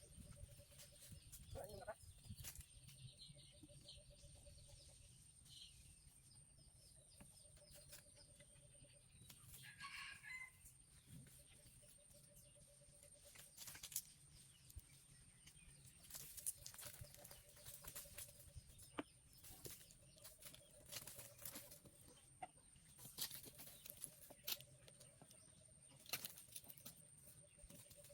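Faint farmyard sounds: a chicken calling once about ten seconds in, with scattered small knocks and clicks.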